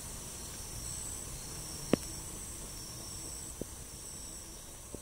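Steady high-pitched chorus of forest insects with a pulsing shimmer, and a sharp click about two seconds in followed by two fainter ticks.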